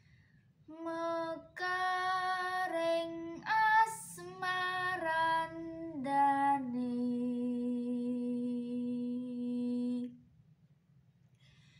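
A girl singing a Javanese macapat verse unaccompanied, in long held notes that step from pitch to pitch, with a quick breath about four seconds in. The phrase ends about ten seconds in on one long, steady low note.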